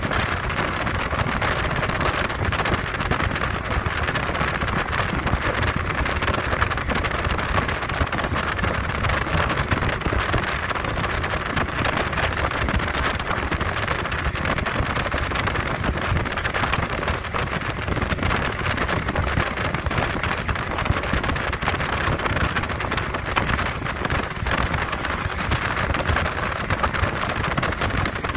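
JR West 115 series electric train running at speed, heard from inside at an open window: a steady rush of wind and wheel-on-rail running noise.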